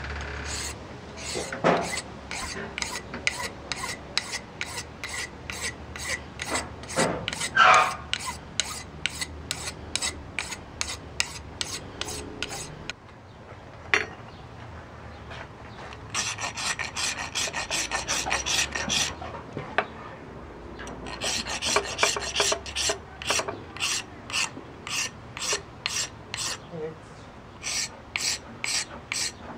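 A coarse round rasp scraping a carved yellow wonderstone pipe piece in quick back-and-forth strokes, about three a second. The strokes pause for a few seconds around the middle, broken by a single sharp tap, then resume faster.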